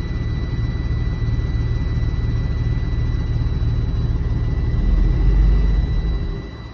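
Truck engine and drivetrain running in gear, spinning the rear wheels on the axle: a steady low rumble that swells about five seconds in, then drops away near the end. The wheels are turning because a stuck spring brake has been manually released at its brake chamber.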